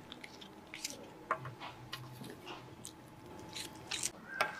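Cats licking and chewing at a glass surface: irregular small wet clicks and smacks, with a sharper click near the end.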